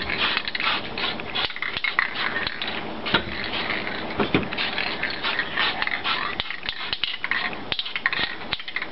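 Aerosol can of matte black spray paint hissing in quick, light passes, mixed with irregular scraping and rubbing noises.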